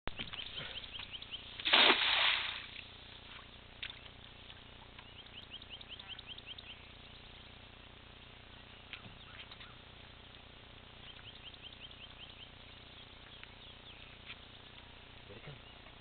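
A cast net hitting the water with a splash about two seconds in.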